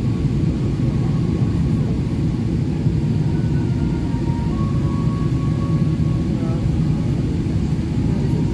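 Steady cabin noise inside a Boeing 777-300ER in flight: an even, low rumble of the GE90 engines and airflow around the fuselage.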